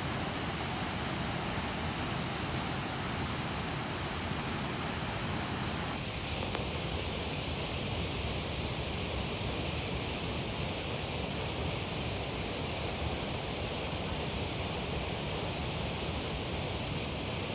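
Steady rushing water of a waterfall, a dense, even roar. Its tone changes abruptly about six seconds in, as from one shot to another.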